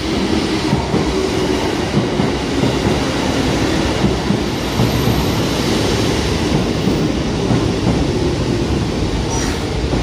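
A four-car Kotoden electric train of 1080-series and 1200-series cars running into the station and passing close by, with a steady rumble of its wheels on the rails.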